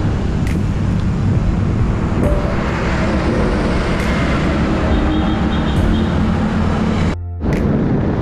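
Steady wind rush on the microphone with road traffic, heard from a moving bicycle among passing cars and a truck. The sound drops out briefly about seven seconds in.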